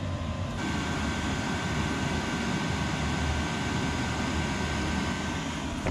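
Chinese 5 kW diesel air heater running: a steady rush of air over a low rumble, with a thin high whine. About half a second in, the rush and whine get louder and then hold steady.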